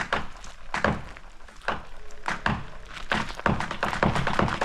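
Hinge wood of a dead tree cracking and snapping as the tree tips over during a controlled fall. The sharp cracks come irregularly at first and grow quicker and denser over the last second or so.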